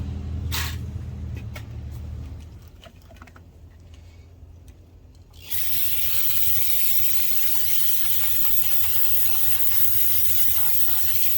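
A low steady hum with a few light clicks, then about five and a half seconds in a loud, steady hiss of spray or escaping air starts suddenly and holds on.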